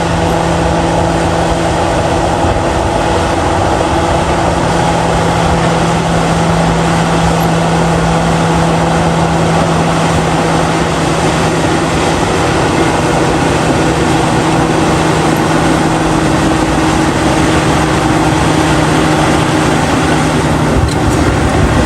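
Heavy bulldozer's diesel engine running steadily under load: a constant low drone over dense mechanical noise, with no revving or pitch change.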